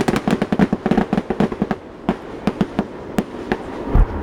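Fireworks display: a rapid string of sharp pops and bangs, densest in the first two seconds and then thinning out, with one deep boom near the end.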